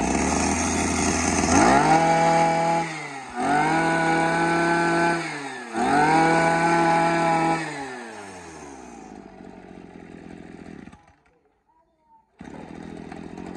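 Makita 26cc two-stroke brush cutter engine idling, revved up to full speed and let back down to idle three times. It keeps idling and goes quiet briefly near the end before the idle sound returns.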